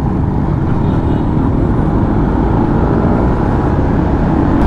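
Yamaha Sniper 150 motorcycle on the move: its engine running steadily at road speed, mixed with loud wind rush over the helmet-mounted camera's microphone.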